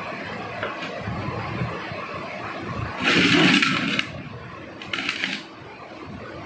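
Plastic cups knocking and scraping against the inside of a large clear plastic jar as they are lowered into it: a loud rustling scrape about three seconds in lasting about a second, then a shorter one a second later, over a steady low background noise.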